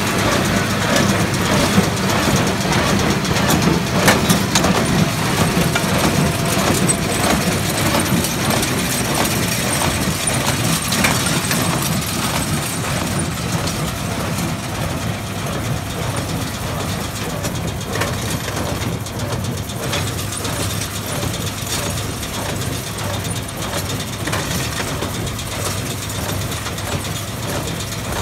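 Case IH Puma tractor's engine running steadily under load while it pulls a New Holland small square baler at work, the baler's moving parts adding a continuous clatter of small knocks.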